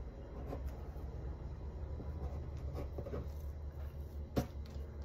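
Faint scratching of a small knife tip drawing through raw pizza dough onto parchment paper, a few light scrapes with one sharper click about four seconds in, over a low steady hum.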